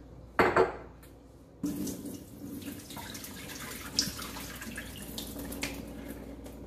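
Glass jars knock twice on a stone counter. Then water pours steadily from an upturned mason jar through its mesh sprouting lid and splashes into the sink, with small clinks along the way.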